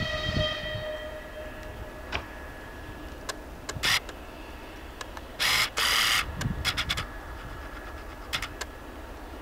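The tail of a TEP70BS diesel locomotive's horn fades out over the first two seconds above the low rumble of the departing train. From about four seconds in comes a run of sharp clicks and loud scraping bursts of camera handling and focusing noise, loudest around five to six seconds.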